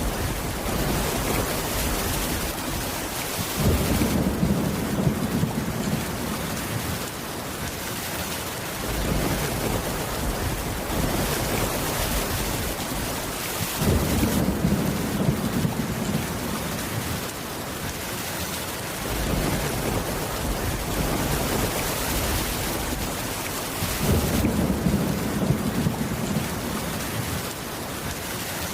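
Steady rain with low thunder rumbles that start sharply three times, about ten seconds apart, each lasting a few seconds.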